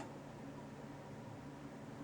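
Faint steady hiss with a low hum, and no chime sounding.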